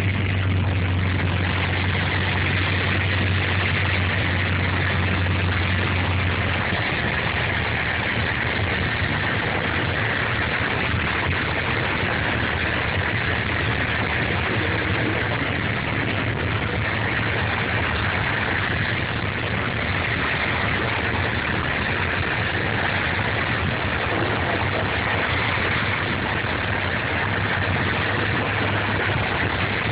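Steady drone of a Piper PA-28's piston engine and propeller heard inside the cockpit in flight. A deep hum in it weakens about seven seconds in and comes back stronger near the end.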